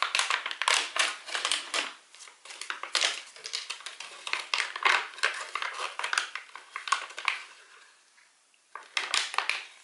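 Crinkling and tearing of an MRE brownie pouch's plastic-and-foil packaging as it is ripped open and handled: dense crackling that pauses briefly near the end, then one short last burst.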